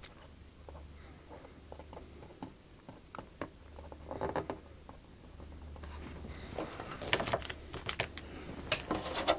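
Faint tapping and scratching of a paint-marker tip on a clear plastic RC car body, then denser, louder clicks and knocks as the thin plastic body is handled and shifted over the last few seconds.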